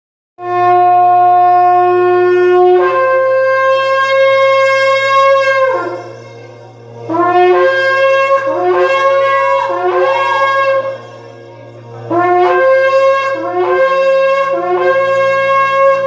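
A long twisted-horn shofar being blown: one long blast that steps up from a low note to a higher one partway through, then two runs of shorter blasts, each sliding up from the low note to the high one, with brief breaths between the runs.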